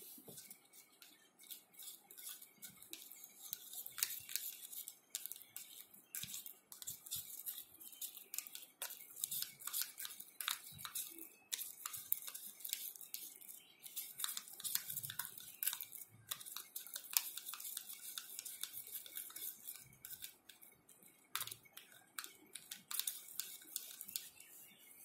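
Fingers kneading and pinching sticky slime in a small plastic cup: irregular quick sticky clicks and crackles, some louder snaps among them.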